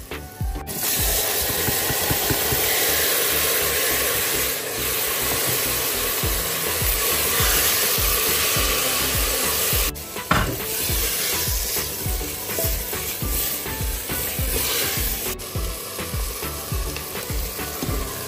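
Potatoes and mixed vegetables sizzling in oil in a pressure-cooker pot while a wooden spoon scrapes and stirs them against the metal, over background music with a steady beat. The frying noise cuts off abruptly about ten seconds in and starts again.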